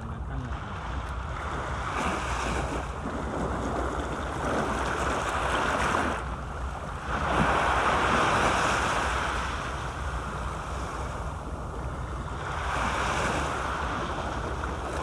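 Small sea waves washing and breaking up the sloped concrete blocks of a seawall, swelling and easing several times, loudest about seven to nine seconds in. Wind rumbles on the microphone underneath.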